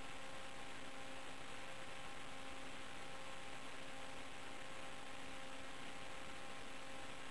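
Steady hiss with a constant electrical hum made of several fixed tones, the noise of an analog FPV video link's recorded audio channel. It does not change with the aircraft's speed.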